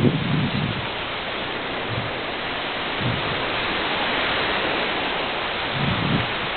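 Steady wind rush over the microphone of a small toy video camera hanging from a kite line, with several short, low buffets as gusts hit it.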